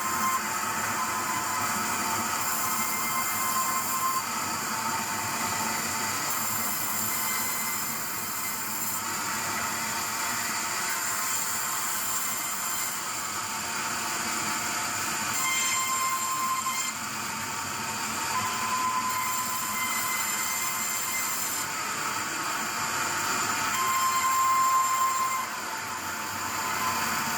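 Sawmill saw running and cutting wood: a steady mechanical noise with a high squealing tone that comes and goes several times.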